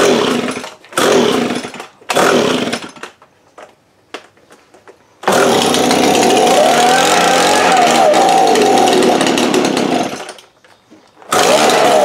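Echo two-stroke leaf blower engine being pull-started: it fires in three short bursts, then runs for about five seconds with a wavering pitch and dies, and catches briefly once more near the end. It is not yet running steadily after a gummed-up carburetor was cleaned.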